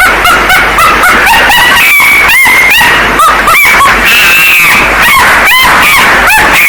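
Monkey calls played extremely loud and distorted: a rapid series of short rising-and-falling shrieks, with a couple of longer held calls about four seconds in and near the end.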